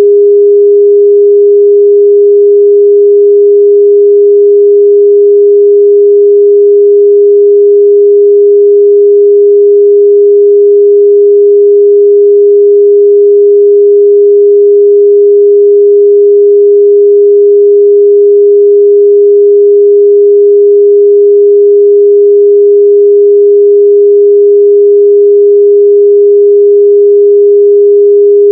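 A steady 408 Hz sine-wave test tone: one pure pitch, held unchanged and loud.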